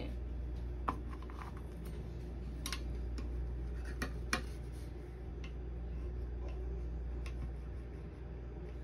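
Steady low hum with a handful of short, sharp clicks and taps scattered through it, the clearest about one, three and four seconds in.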